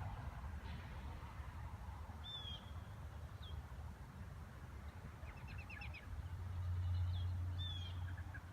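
Wild birds calling in winter: a short high down-slurred call repeats every few seconds, with a quick run of short chips near the middle. A low rumble swells up in the second half, louder than the birds.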